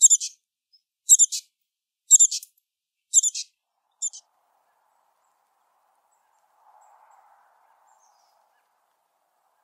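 Female black-capped chickadee giving the broken dee call: five short, high calls about one a second, each broken into several pieces, stopping about four seconds in. This call is made only by females in the breeding season, from nest completion through early incubation, as part of courtship.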